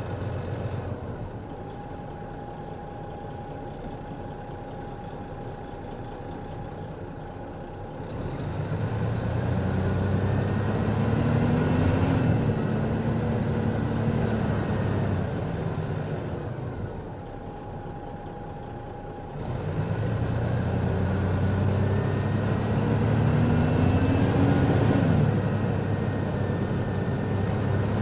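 Turbocharged Detroit Diesel Series 60 inline-six in an MCI D4000 coach, idling with a thin steady whine, then revving up twice. Each time the engine note climbs over a few seconds with a rising turbo whistle, then drops back.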